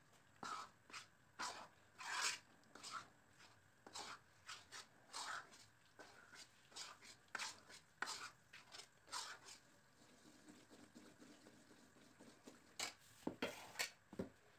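Steel spatula scraping and knocking against a kadhai while flour is stirred into melted ghee: a run of short, irregular scrapes, a lull, then a few more strokes near the end.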